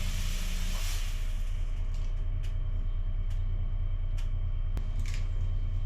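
Fog machine blowing out fog with a hiss that fades out about a second and a half in, over a steady low hum. A few sharp clicks follow.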